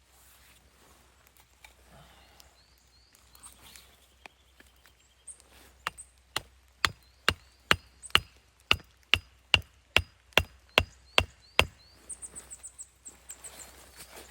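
Wood being chopped: about fourteen sharp, evenly spaced blows, a little over two a second, starting about six seconds in and stopping near the end.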